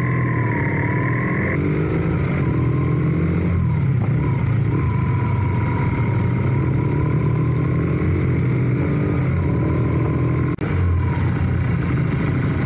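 Motorcycle engine running while riding, its pitch rising and falling with the throttle and gear changes. The sound drops out for an instant about ten seconds in.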